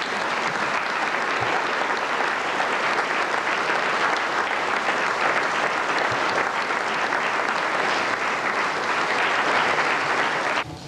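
Audience applauding steadily, then cutting off suddenly near the end.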